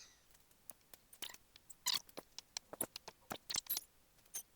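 Disposable-gloved hands making a string of short, irregular sticky clicks and squelches, spaced unevenly over a few seconds.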